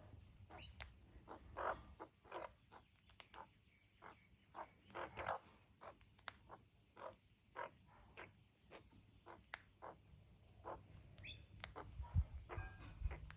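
Australian magpies giving short, quiet calls in an irregular run, several a second, with a low thump about twelve seconds in.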